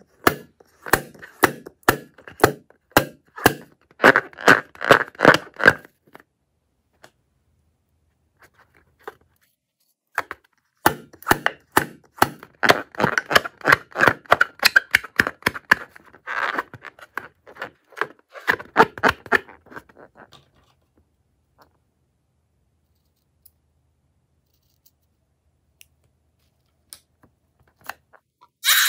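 Slime-filled rubber balloon crackling and clicking as fingers squeeze and handle it, in two runs of rapid crackles separated by a short pause, then only a few scattered clicks near the end.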